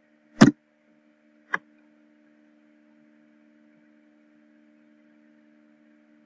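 A faint steady electrical hum, with two sharp clicks at the computer about a second apart near the start, the first much the louder, as the login is submitted.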